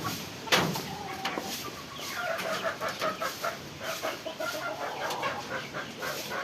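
Domestic chickens clucking, with a quick run of short, repeated clucks through the second half. A sharp knock or scrape about half a second in is the loudest sound.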